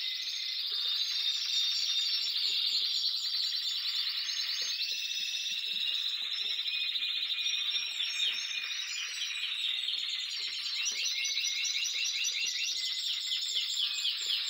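Several Spanish Timbrado canaries singing at once from their cages: continuous fast rolling trills and rapidly repeated chattering notes.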